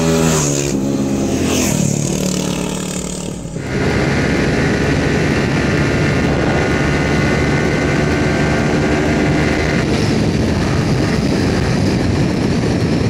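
Yamaha R15 V4 M's 155 cc single-cylinder engine at high revs as the bike passes at speed, its note falling in pitch as it goes by. Then, from on the bike, a steady engine note at high speed with wind rushing over the microphone.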